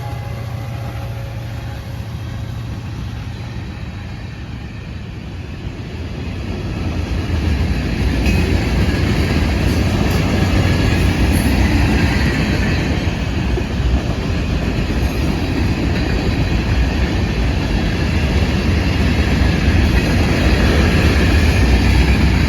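Florida East Coast Railway train rolling past: a steady heavy rumble of wheels and cars on the rails, swelling louder after a few seconds and then holding.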